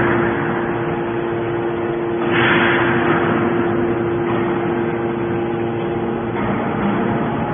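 Hydraulic scrap-metal baler's power unit running with a steady hum, with a rush of hiss about two and a half seconds in and a slight change in tone near the end as the ram pushes out a compressed bale of scrap.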